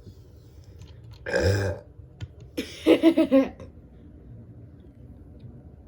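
Two voiced burps made with the mouth: a short one about a second in, then a longer one that pulses in several quick beats.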